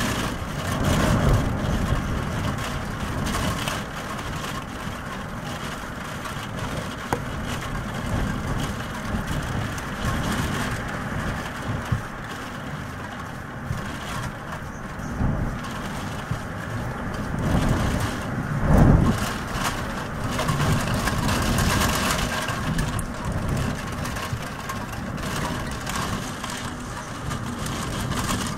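Heavy rain beating on window glass in gusting wind: a steady noise that swells and falls, with two stronger low rumbles about a second in and near the two-thirds mark.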